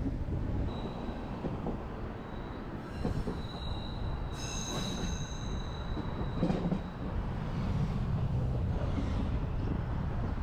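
Berner Oberland Bahn metre-gauge train running with a steady low rumble. A high, thin wheel squeal comes in about a second in, is strongest around the middle, and fades by about seven seconds in.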